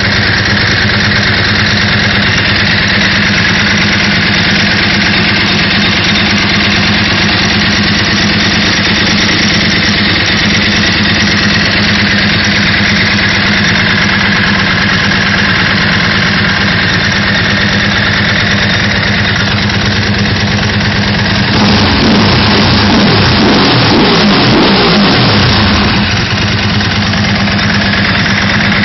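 Ducati 999's L-twin engine running steadily on newly fitted timing belts, with the belt covers off. For a few seconds, about 22 seconds in, the note wavers up and down and gets a little louder.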